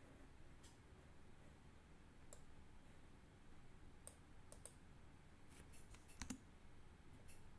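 Near silence with faint, scattered clicks of a computer mouse, a few single ones and a quick cluster about six seconds in.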